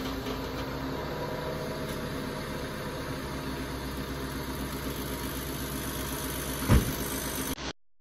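Car engine idling steadily, with a single low thump near the end.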